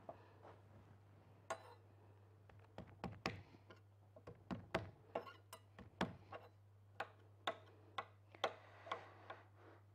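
Chef's knife mincing garlic cloves: sharp knocks of the blade coming down, scattered at first, then about two a second.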